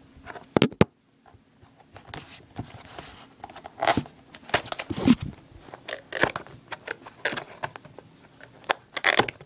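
Cardboard box and its packaging being worked open by hand: irregular crinkling, tearing and knocking, the box hard to get open.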